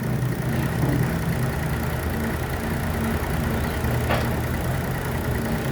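Sawmill engine idling steadily, with a single short click about four seconds in.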